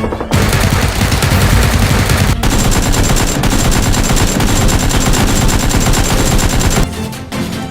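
Rapid automatic gunfire in a continuous long burst with a brief break about two and a half seconds in. The gunfire stops about a second before the end, leaving background music.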